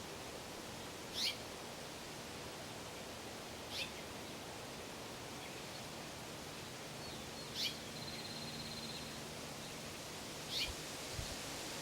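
A bird giving a short, high, downward-sweeping chirp four times, about every three seconds, with a brief buzzy trill near the middle, over a steady outdoor hiss.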